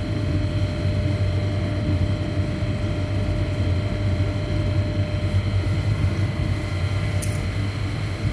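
Apheresis cell separator running steadily beside the bed while it draws and returns blood to collect stem cells: a constant low hum with faint steady whine tones. A brief click about seven seconds in.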